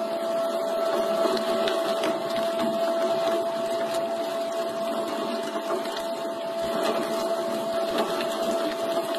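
Stainless-steel electric meat grinder running steadily, its motor giving a constant whine while meat is pushed down the hopper and forced out through the grinder plate.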